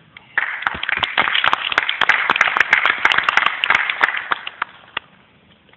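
A small audience applauding the end of a poem. The clapping breaks out about half a second in and thins out to a few last claps about a second before the end, with some sharp claps close to the microphone.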